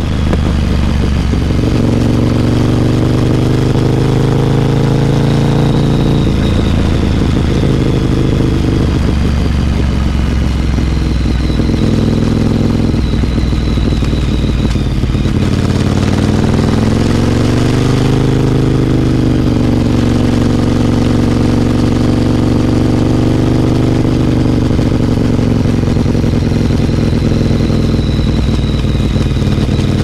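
Ducati Monster 1100 EVO's air-cooled L-twin engine through a Competition Werkes GP slip-on exhaust, running loud and steady as the bike is ridden. Its note rises and falls several times with the throttle.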